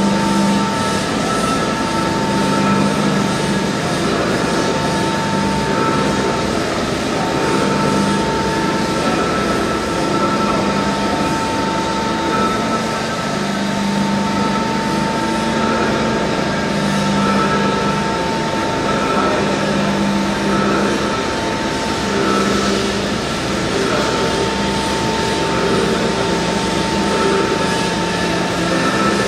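Railway locomotive turntable rotating, its drive and running gear giving a steady whine over a continuous rumble.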